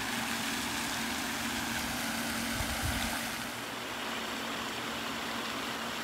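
Steady rushing splash of a pond aerator fountain's spray, its tone shifting slightly a little over three seconds in.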